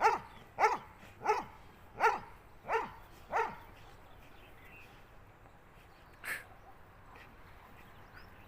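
A dog barking six times in a steady series, about one bark every two-thirds of a second, then stopping; a single short click or knock follows a few seconds later.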